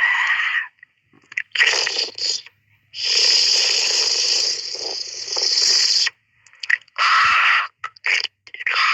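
Cat hissing in repeated bursts, with one long hiss lasting about three seconds in the middle.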